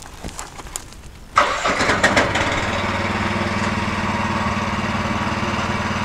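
The gasoline engine on a Pascal Métal portable band sawmill starting up about a second and a half in, then running steadily.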